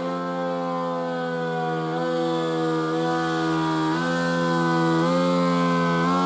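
A very large siren sounding a low, steady tone that steps up a little in pitch a few times.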